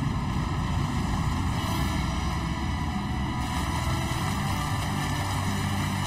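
Steady low rumble of machinery under a rushing hiss of water: the old Pearson rock separator is running again, water blasting from its spray bars over the rocks on its perforated deck.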